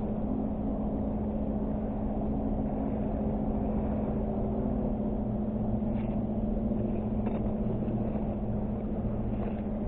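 A steady engine drone with a constant low hum, with a few faint ticks about six, seven and nine and a half seconds in.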